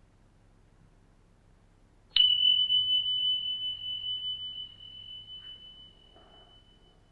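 A single sharp strike followed by one clear, high ringing tone that slowly fades away over about five seconds.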